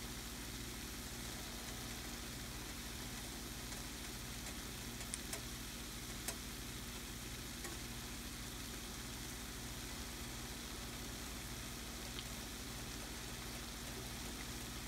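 Sesame-coated dough cakes deep-frying in hot oil in a skillet: a steady sizzle with a few small pops.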